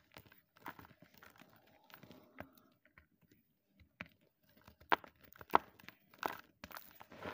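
Blocks of gym chalk crushed and crumbled by hand: irregular dry crunches and crackles, sparse at first and sharpest a little after halfway.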